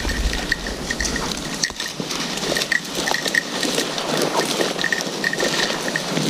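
Footsteps pushing through dry bracken and undergrowth, an irregular crackling and rustling, with faint short high pings now and then.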